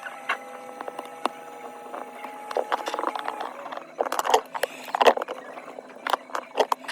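Hand tools working on an iPhone 13 Pro during a back-glass replacement: sharp taps, clicks and short scrapes, coming thicker and louder in the second half. Under them is a faint steady hum that stops about halfway through.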